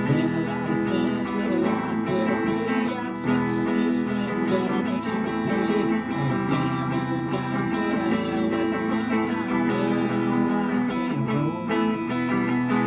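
Guitar playing an instrumental stretch of a rock song, with strummed chords ringing steadily.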